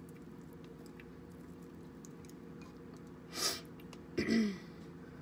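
A person clearing her throat once, a short grunt that falls in pitch, about four seconds in, after a brief noisy breath or sniff a little before it. A steady low hum runs underneath.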